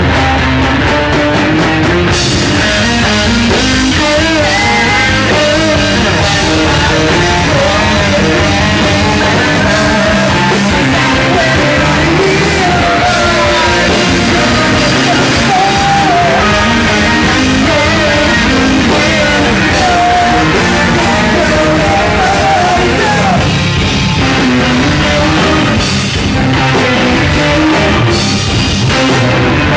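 Live synthcore/metalcore band playing loud: distorted electric guitars, drum kit and synthesizer, recorded from the room. The sound gets fuller and brighter about two seconds in.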